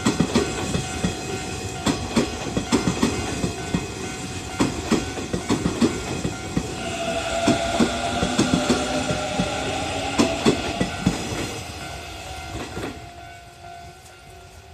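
Electric commuter train passing over a level crossing, its wheels clicking rapidly over rail joints, with the crossing's warning bell ringing steadily. About seven seconds in, the train's horn sounds for about four seconds; the train noise dies away near the end.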